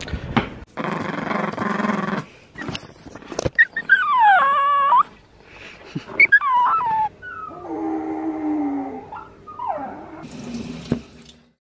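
A Pomeranian whining and howling in several high calls that waver up and down in pitch, starting about four seconds in. Before that, a steady hiss and a couple of sharp clicks; the sound fades out near the end.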